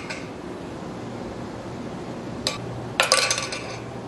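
The metal ring of a Tiki Toss ring-and-hook game clinking against the metal hook on its wooden board. A short clink comes about two and a half seconds in, then a louder jangling clatter of about half a second as the ring lands on the hook.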